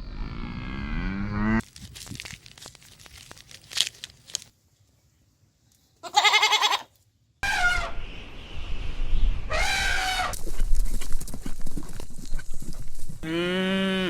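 Goats bleating: about five separate wavering calls in a row, joined by abrupt edits, with a gap of silence in the middle.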